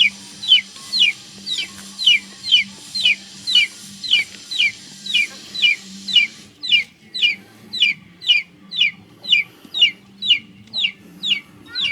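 A bird peeping: a long, even series of short high notes, each falling in pitch, about two a second.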